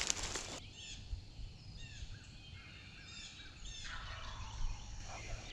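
Wild turkey gobbling about four seconds in, a quick rattling call, with songbirds chirping throughout.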